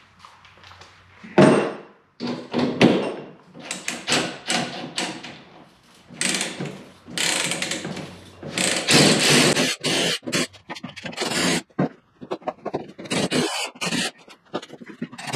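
Items being pulled out of an ATV's rear cargo box: a run of irregular scrapes, rattles and thunks as things are lifted out and set down.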